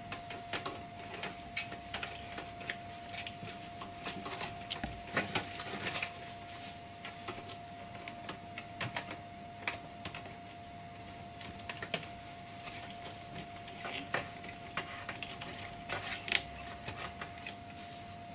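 Irregular clicks, taps and rattles of an IDE ribbon cable and its plastic connectors being handled and pushed into place inside a computer case, with one louder click near the end.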